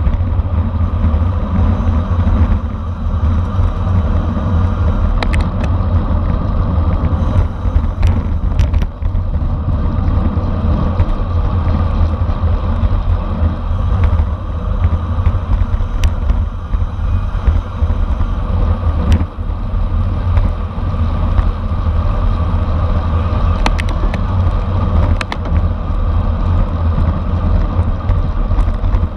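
Steady wind rushing over the microphone of a camera riding along with a racing bicycle at speed, with scattered sharp clicks.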